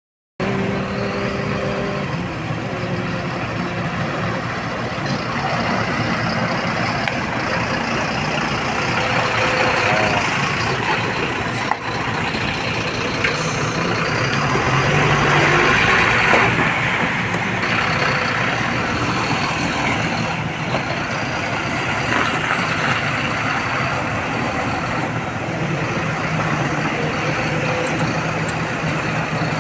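Diesel engines of a SANY excavator and a Bharat Benz 2528 tipper truck running steadily under load, the engine note swelling and easing. About eleven and twelve seconds in there are two short loud knocks with a brief high squeal.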